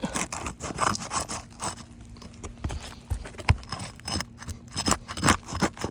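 Asphalt roof shingles being lifted and worked by hand, giving irregular scrapes, clicks and crackles as their seal strips are tested: these shingles are separating from wind damage.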